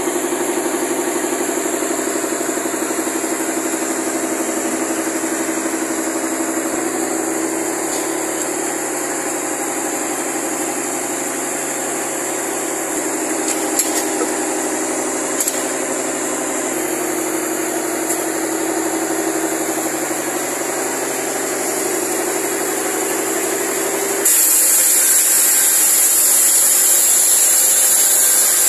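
Sawmill driven by a Mitsubishi Fuso truck diesel engine, running steadily, with a few light knocks in the middle. About 24 seconds in, the saw bites into a teak log and a louder, higher cutting noise takes over.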